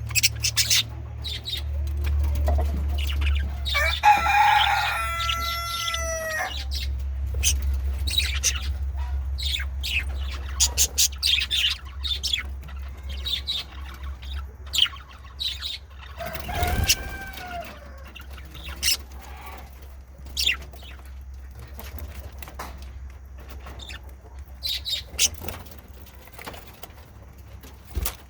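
Male budgerigars chattering with many short chirps and clicks, with two longer warbling calls about four seconds in and again around seventeen seconds, over a steady low hum.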